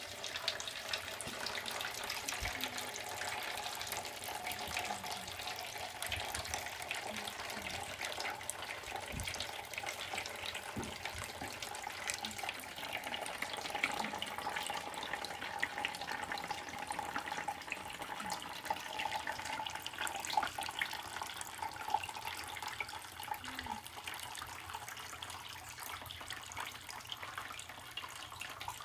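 Water trickling and dripping steadily from cup to cup down a stacked plastic-cup water clock, with many small drip ticks over a continuous trickle.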